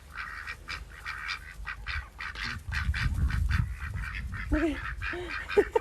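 Ducks quacking, a rapid run of many short calls.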